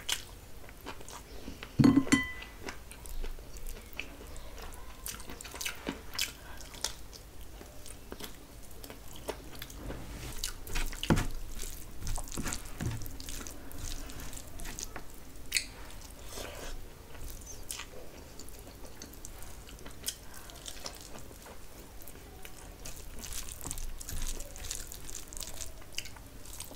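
Close-up eating sounds: chewing and wet mouth smacks from handfuls of mutton biryani rice eaten by hand, with many small clicks and a louder knock about two seconds in.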